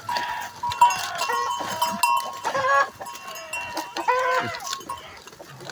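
Goats bleating, two calls about a second and a half apart, with chickens clucking and a faint steady high tone behind.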